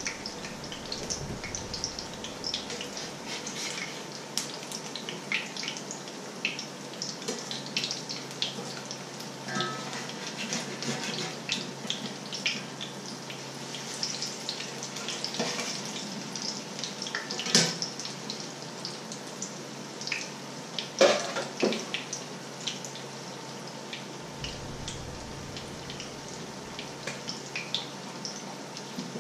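Batter patties frying in hot oil in a frying pan: a steady sizzle full of small crackling pops, with two louder knocks about 17 and 21 seconds in.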